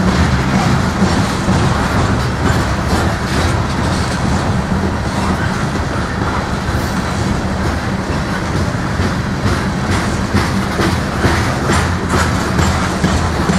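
Freight train of covered hopper cars rolling past: a steady rumble of steel wheels on rail, with irregular clicks and clacks as the wheels pass over the track.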